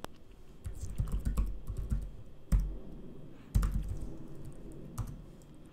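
Typing on a computer keyboard: a run of quick keystroke clicks, with two louder, deeper thumps about two and a half and three and a half seconds in.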